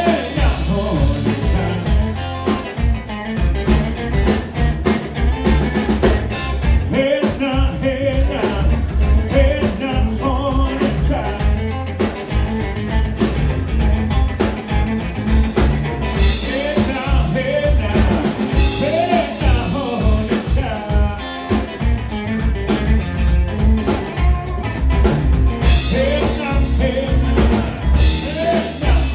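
Live blues band playing, with drums and guitar over a steady beat.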